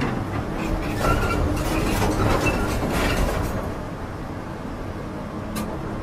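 Heavy machinery rumbling, with scattered metallic clanks and faint squeaks; it eases off about four seconds in.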